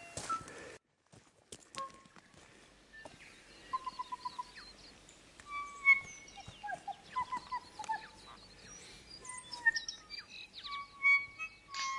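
Several birds singing in bush: many short whistles, chirps and quick trills at varied pitches. A brief rustling noise cuts off under a second in.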